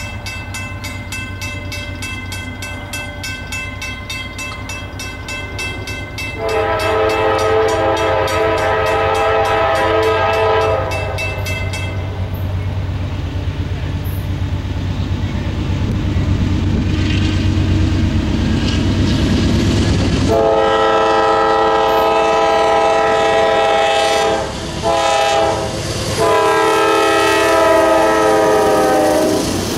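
Norfolk Southern diesel locomotive horn sounding the grade-crossing signal, two long blasts, a short one and a long one, as the train approaches. Under it the locomotives' diesel engines grow steadily louder. A crossing bell rings fast until about twelve seconds in.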